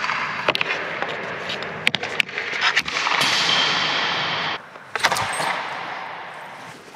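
Ice hockey sticks and pucks on the rink: several sharp clacks of stick and puck striking. About three seconds in there is a scraping hiss across the ice that cuts off suddenly, then one more clack.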